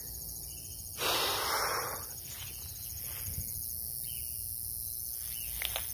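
Insects chirring steadily in a fast, even pulse. About a second in, a loud rush of noise lasting about a second stands out over it, and a couple of faint clicks come near the end.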